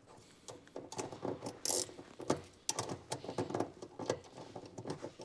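Hand ratchet clicking in quick uneven runs as a nut is run down onto a suspension stud, with short metallic rasps between strokes.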